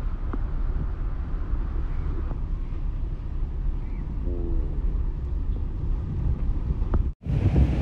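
Steady low road and engine rumble heard from inside a moving car. It cuts out abruptly near the end and comes back louder, with wind on the microphone.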